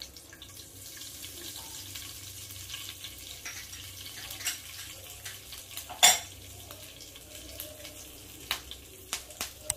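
Hot oil sizzling in a pan with the start of a tempering, with scattered sharp clicks and taps. One loud knock comes about six seconds in.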